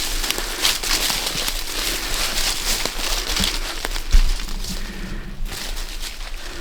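Dry leaves and forest-floor litter crunching and rustling under footsteps, with many small crackles, and a low thump about four seconds in.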